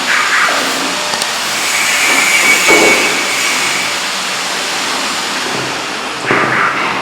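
A machine running with a loud, steady rushing noise, a faint high whine coming in briefly mid-way.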